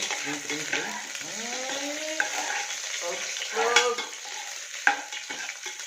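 Chopped onions sizzling in hot oil in a pan while a spatula stirs them, scraping the pan, with sharp knocks of the spatula against the pan, the loudest two near the end.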